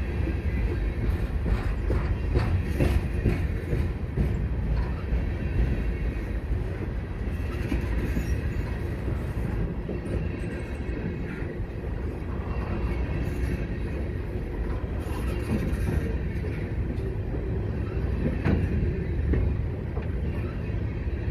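Freight train of aluminum coal hopper cars rolling past close by: a steady rumble of steel wheels on the rails, with scattered clicks and clacks as the wheels pass over the rail.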